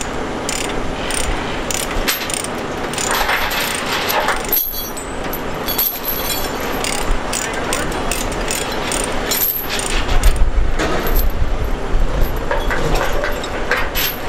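Steel tie-down chains clinking and rattling as they are pulled loose from an excavator's tracks and dropped onto a trailer deck, many sharp metal clinks over a steady background noise. A low rumble grows louder about ten seconds in.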